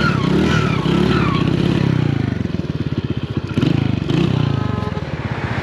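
Honda Win motorcycle's small single-cylinder four-stroke engine running under way, its revs rising and falling repeatedly as the throttle is worked over rough ground.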